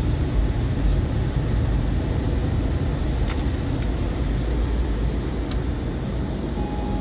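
Automatic car wash air dryer blowing on the car, heard from inside the cabin as a steady, loud rush of air with a low rumble. A few light clicks come through it.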